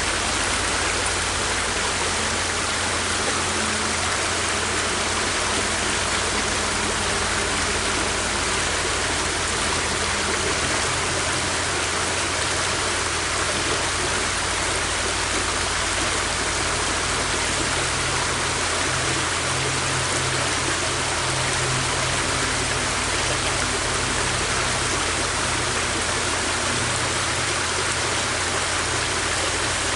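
River water flowing, a steady rushing and babbling that stays the same throughout.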